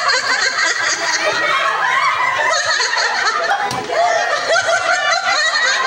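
A crowd of women laughing loudly together, many voices overlapping.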